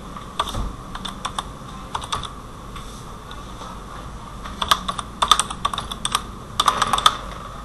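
Typing on a computer keyboard. A few separate keystrokes come in the first two seconds, then a quick run of keystrokes from about four and a half to seven seconds in.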